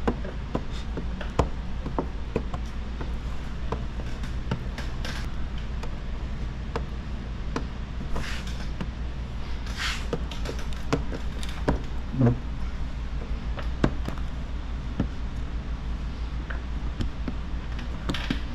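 Hand squeegee and tucking tool working wet paint protection film on a car bumper: scattered small clicks, taps and scrapes, with a few short hissing swishes, over a steady low hum.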